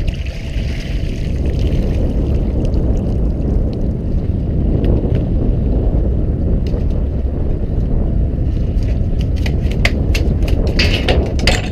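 Steady low rumble of a fishing boat's engine running, mixed with wind noise, and a cluster of sharp knocks and clatters near the end as the gaffed wreckfish is hauled over the side onto the deck.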